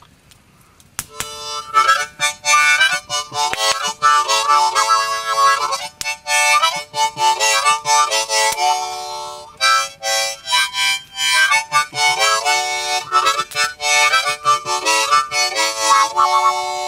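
Harmonica playing a familiar tune in chords and single notes. It starts about a second in, with two short pauses along the way.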